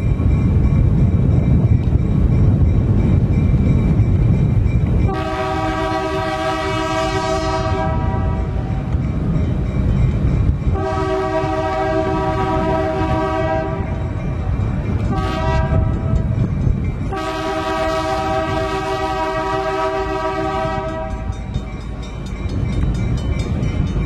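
EMD GP9R diesel locomotive's air horn sounding the grade-crossing signal, heard from the cab: two long blasts, a short one, then a final long one. Underneath is the steady low rumble of the locomotive and its wheels, loudest in the first few seconds before the horn starts.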